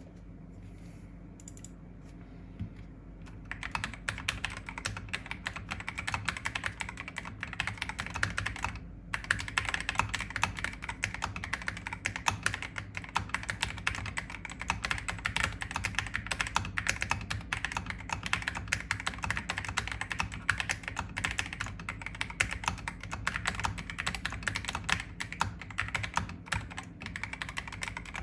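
Mechanical keyboard with KTT Peaches linear switches being typed on steadily, a fast run of key clacks. It starts about three and a half seconds in and pauses briefly near the ninth second.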